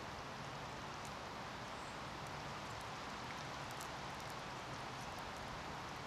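Steady, even background hiss of outdoor ambience, with a few faint ticks.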